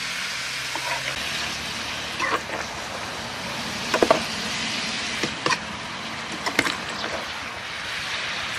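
Bean sprouts and cubes of pig blood sizzling as they are stir-fried in a metal wok. A metal spatula scrapes and clinks against the pan now and then, loudest about four seconds in.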